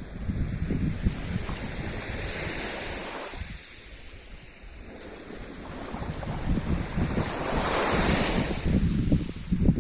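Sea surf: waves washing in, easing off a few seconds in, then swelling to a loud hiss about eight seconds in, with wind buffeting the microphone.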